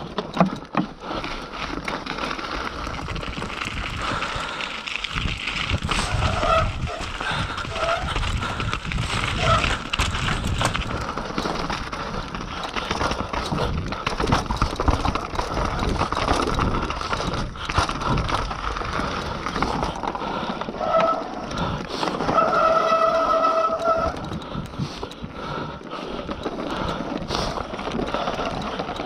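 Mountain bike clattering and rattling down a trail, its tyres running over wooden boardwalk slats and roots with a steady low rumble and many quick knocks. A short steady whine with an overtone comes and goes several times, longest for about a second and a half about three-quarters of the way in.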